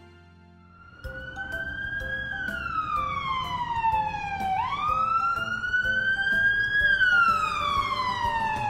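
Police siren wailing in slow rising and falling sweeps: it starts about a second in and goes through two full cycles, snapping back up quickly at each low point, over a low vehicle rumble.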